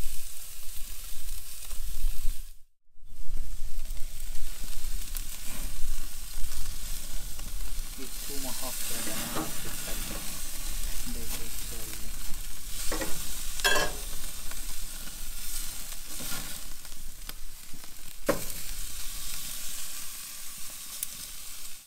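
Tomahawk and filet mignon steaks sizzling on a charcoal grill over glowing coals, a steady hiss of searing meat with a few short sharp crackles. The sound cuts out briefly about three seconds in.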